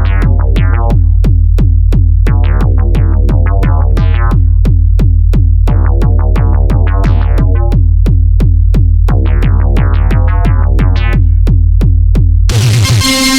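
Electronic music: a drum machine ticking at about three to four beats a second over a steady deep bass, with rapid plucked synthesizer notes. Near the end it cuts suddenly to a held, sustained chord.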